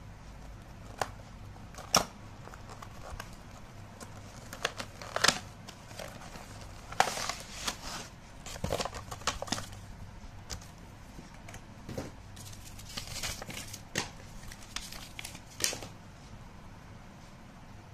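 Cardboard retail box and plastic packaging tray handled during unboxing: irregular sharp clicks and taps mixed with short crinkling rustles.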